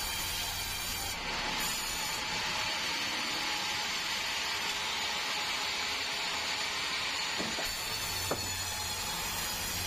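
Sawmill band saw cutting through a meranti log, a steady rasping hiss that starts about a second in and stops shortly before the end.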